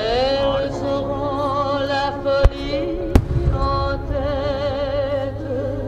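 Music over loudspeakers with long, wavering sustained notes and a steady low rumble, cut by two sharp firework reports about two and a half and three seconds in.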